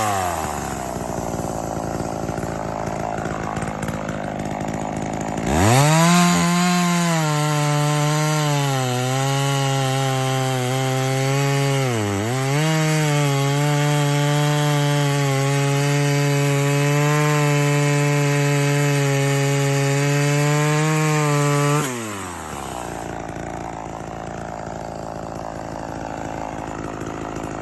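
Mildly ported Homelite Super XL Automatic two-stroke chainsaw idling. About five seconds in it revs up and holds at high speed for about sixteen seconds, with a brief dip about halfway, then drops back to idle.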